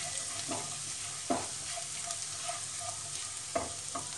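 Finely chopped garlic and cumin seeds sizzling in hot ghee and oil in a kadai, stirred with a spatula that knocks against the pan about a second in and twice near the end.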